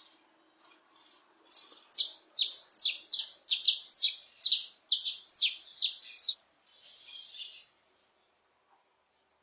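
Male saffron finch (canário-da-terra) singing: a quick phrase of over a dozen clear notes, each sliding downward, starting about a second and a half in and lasting about five seconds, then a short softer twitter.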